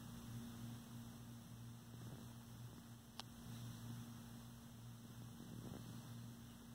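Near silence: a faint steady electrical hum with light hiss, and one faint tick about three seconds in.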